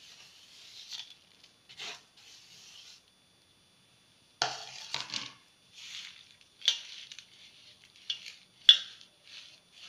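Crumbled jaggery sliding off a plate onto cooked red pumpkin in a steel bowl, a soft crackly hiss. After a short silence, a hand crumbles and mashes the pumpkin and jaggery in the bowl: short scrapes with sharp clicks and knocks against the steel.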